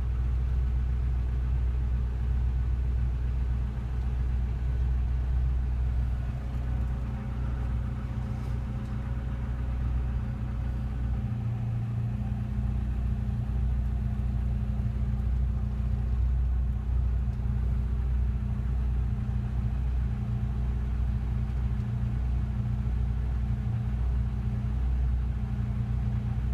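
Freshly rebuilt Rover K-series 1.8 VVC four-cylinder engine of an MG ZR 160 idling steadily.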